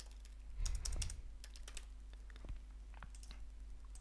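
Computer keyboard typing: a quick run of keystrokes about half a second in, then a few scattered clicks.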